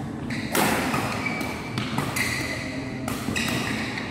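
Badminton rackets hitting the shuttlecock in a fast doubles rally: a few sharp smacks about a second apart, the loudest about half a second in, ringing in a large hall.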